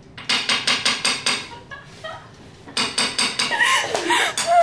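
Spoon beating cake batter in a bowl, knocking against the bowl in a quick steady rhythm of about five strokes a second. It pauses about a second and a half in, then resumes.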